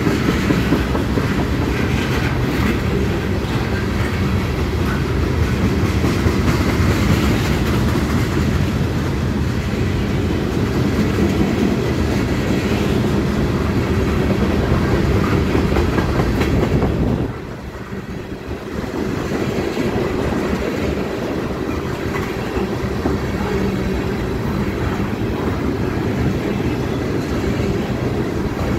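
Tank cars of a CSX freight train rolling past, steel wheels running on the rails in a steady low rumble. The sound dips briefly about seventeen seconds in, then carries on as before.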